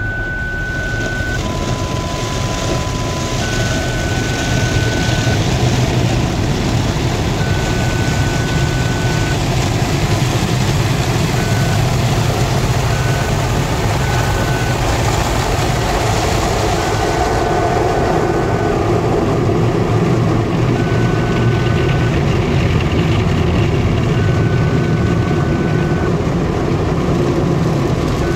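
Automatic car-wash brushes and water spray beating on the car's body and windscreen, heard inside the cabin as a steady rushing and rumbling. Through it the car's parking sensors sound a steady high tone in repeated stretches of a second or two as the brushes come close, with a lower tone briefly about two seconds in.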